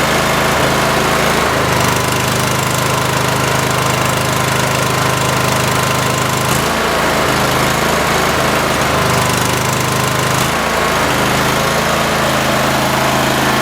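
Cub Cadet 3225 lawn tractor's 22 hp Kohler twin-cylinder engine running, its low note shifting a few times. The owner suspects a bad ignition coil is making one cylinder miss, since one spark plug came out wet with gas.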